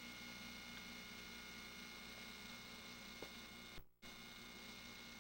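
Faint steady electrical mains hum with a few faint ticks. The hum drops out completely for a moment a little under four seconds in.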